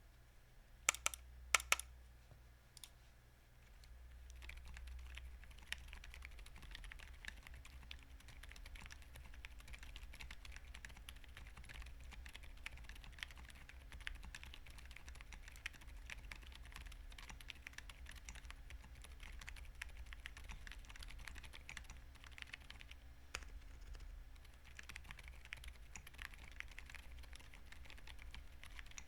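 Typing on a Tofu60 2.0 keyboard with silent switches (Emotoys silent daisy) on an aluminium plate with foam: quiet keystrokes in a steady run from about four seconds in. A few sharp, louder clicks come about a second in.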